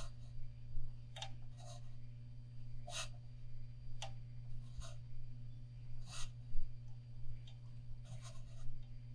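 Small irregular scratches and ticks from a fingernail and fingers packing metallic wrapping thread tight on a fishing rod as it is turned by hand, about one every half second to a second. A steady low hum runs underneath.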